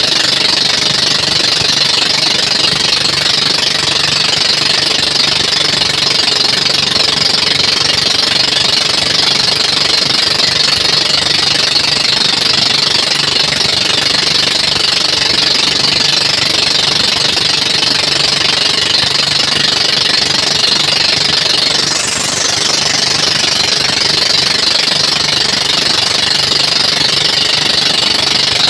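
Motorized bangka outrigger boat's engine running steadily and loud at cruising speed, with water rushing along the hull.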